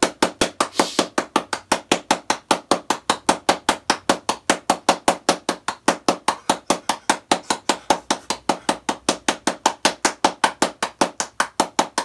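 A rapid, perfectly even series of sharp percussive clicks or knocks, about five or six a second.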